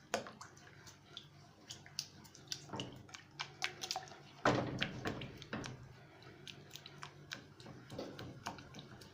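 A spoon stirring a thick, hot sugar-and-cinnamon syrup with olive oil in a pot, making irregular clicks and scrapes against the pot, with one louder, longer stroke about four and a half seconds in.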